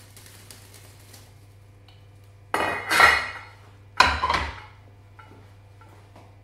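Kitchen dishes and utensils clattering as they are handled: two short bursts of clatter, the first about two and a half seconds in and the second about four seconds in.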